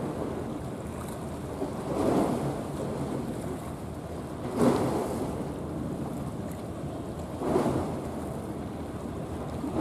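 Waves washing at the water's edge, with wind noise on the microphone. The wash swells three times, about every two and a half to three seconds.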